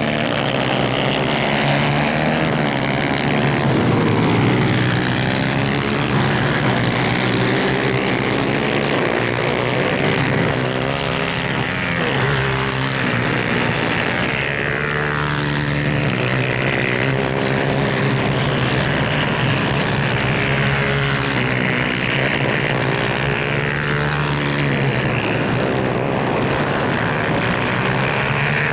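Several 250cc two-stroke superkart engines racing at high revs, overlapping, their pitches rising and falling as the karts accelerate, shift and pass.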